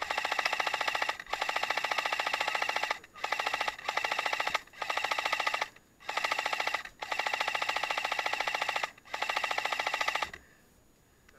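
Airsoft electric rifle firing on full auto in seven bursts of one to two seconds each, a fast, even buzzing rattle that stops about a second before the end.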